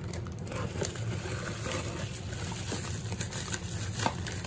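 Bubble wrap and plastic packaging crinkling as a wrapped part is handled, with a sharper crackle about four seconds in, over a low steady hum.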